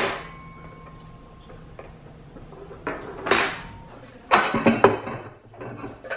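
Ceramic dinner plates and forks clinking and clattering as they are set down on a wooden table. A sharp clink at the start rings on briefly, a clatter follows a little after three seconds, and a run of quick knocks comes about a second later as plates are laid down from a stack.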